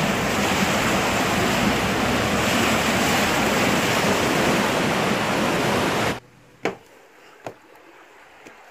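Water rushing and churning into a canal lock chamber through the opened sluices as the lock fills, a steady loud rush that stops abruptly about six seconds in, leaving only a few faint clicks.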